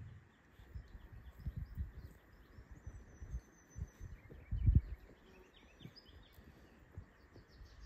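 Outdoor ambience with faint birdsong: short high chirps and a thin whistled note. Beneath it come irregular low thumps, the loudest about five seconds in.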